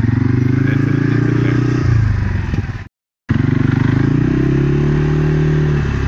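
Engine of a small motor vehicle running at low, creeping speed, its pitch wavering up and down as it follows the cattle. It cuts to silence for a moment about halfway through, then runs on.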